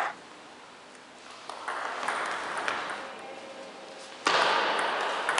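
Table tennis ball clicking sharply off the bats and table during a rally, one crisp click every half second or so. About four seconds in, louder crowd noise rises suddenly in the hall.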